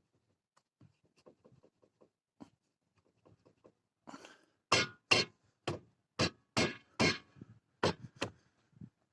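Knocks from the front-left running gear of a LADA XRAY Cross as its parts are worked by hand to find a knock: light faint taps at first, then about nine sharp, louder knocks, roughly two a second, from midway.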